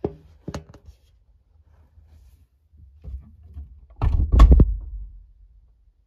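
Thumps and knocks heard from inside a washing machine drum: a sharp knock at the start, another about half a second in, and a louder cluster of heavy thuds about four seconds in.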